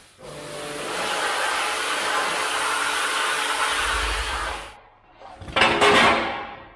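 Pressure washer spraying water onto a mini excavator's radiator: a steady loud hiss of spray with a faint motor hum under it, cutting off about five seconds in. A second loud burst of noise follows for about a second near the end.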